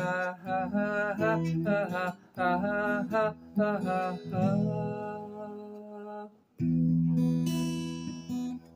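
Man singing with wavering, drawn-out notes over a strummed acoustic guitar. About six and a half seconds in, the voice stops and a new chord is strummed and left to ring.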